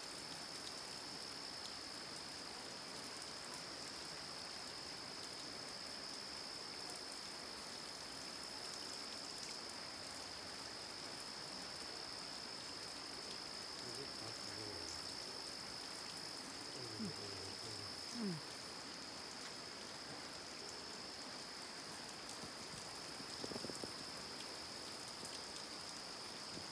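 Water trickling and dripping down a wet rock face into a small creek, a steady hiss. Over it runs a steady high-pitched whine, with a few faint short sounds about two-thirds of the way in.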